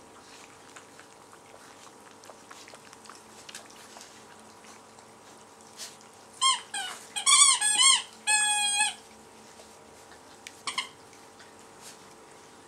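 Labrador retriever puppies squealing and whining: a burst of short, high, rising-and-falling squeals about six and a half seconds in, ending in one longer steady whine, then one short squeak about two seconds later.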